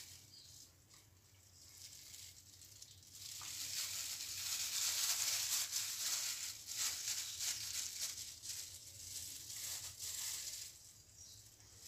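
Plastic food-prep glove and shredded cabbage rustling as the cabbage is scattered by hand over a flatbread wrap. The rustling rises a few seconds in and dies down near the end, over a faint steady low hum.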